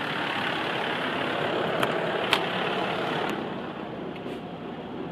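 Fire engine running with its pump and compressed air foam system: a steady, loud mechanical noise. Two sharp clicks come about two seconds in, and a little after three seconds the noise drops to a quieter running level.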